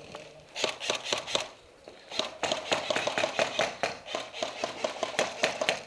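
Airsoft guns firing: rapid runs of sharp snapping shots in irregular bursts, one short burst about half a second in, then a longer, denser string from about two seconds in.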